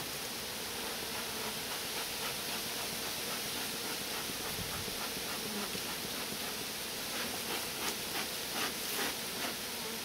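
Honey bees buzzing around a hive: a faint steady drone under an even hiss.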